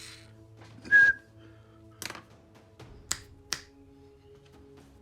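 A person whistles one short note about a second in, then makes three sharp clicks, to set off a sound-activated dancing Coke can toy.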